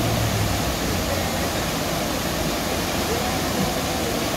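Steady rushing of a class II whitewater rapid.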